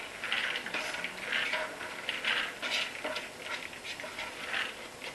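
Cooked white beans and chorizo being tipped and shaken out of a plastic bowl into a Thermomix mixing jar, in a run of short, uneven bursts about three a second.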